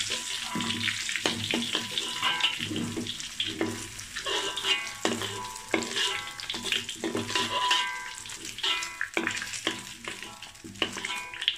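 Soy nuggets frying in hot oil in a wok, sizzling steadily, while a metal spoon scrapes and clicks against the wok as the pieces are scooped out.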